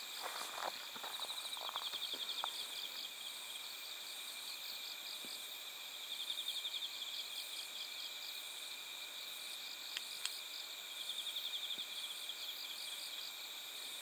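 Night insect chorus: bell crickets (suzumushi) singing in pulsing high trills that come in three bouts of a second or two each, over a steady high insect hum.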